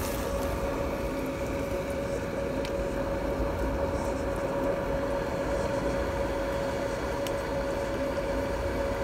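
Steady mechanical hum: one constant mid-pitched tone over a low rumble, with a couple of faint clicks.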